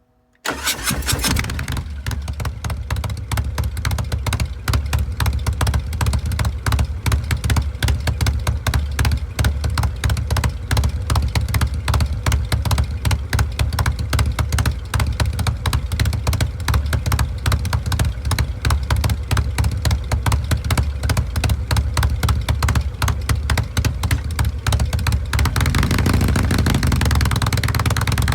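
Harley-Davidson Breakout's Milwaukee-Eight 114 V-twin with an S&S Grand National aftermarket exhaust and S&S 475 cam, idling with an even, loping exhaust beat that begins abruptly about half a second in. Near the end the beat smooths out as the engine runs faster.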